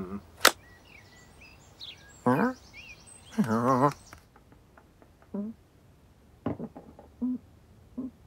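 A person imitating a cat: a wavering, voiced cat-like call about two and a half seconds in and another around three and a half seconds, then short grunts with small clicks after a sudden drop in background. A sharp click about half a second in, and light birdsong behind until about four seconds in.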